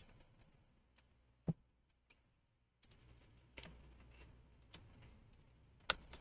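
Scattered faint clicks and taps of a small screwdriver and metal parts being handled inside an open laptop, with a sharper knock about a second and a half in and a louder click near the end.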